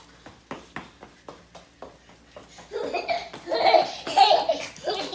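Light footsteps tapping on a concrete floor, then loud laughter in short bursts from about three seconds in.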